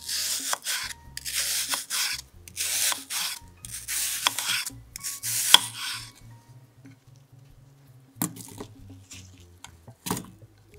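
Knife slicing through a peeled apple on a wooden cutting board: about five slicing strokes in the first six seconds, each ending with a tap of the blade on the board. Later two short knocks come as slices are set into an enamel pot.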